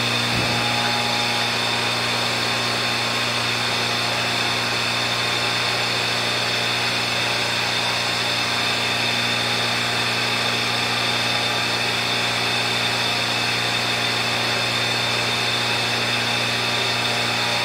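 Electric air blower for the tank aeration running steadily: a constant motor hum over an even hiss, with no change in pitch or level.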